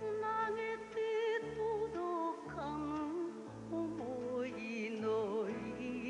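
A woman singing an enka ballad with a wide, wavering vibrato over band accompaniment with sustained bass notes.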